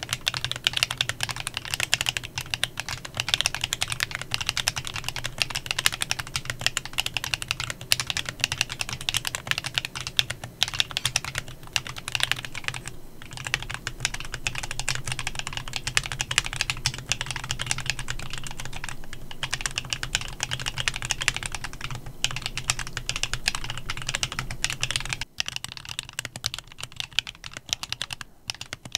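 Continuous fast typing on a Klein Mont Cervin custom mechanical keyboard with factory-lubed Kinetic Labs Candy Vanilla switches: a dense run of key clacks with a few brief pauses.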